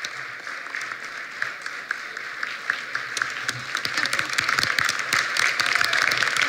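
Audience applauding, the clapping swelling louder about halfway through.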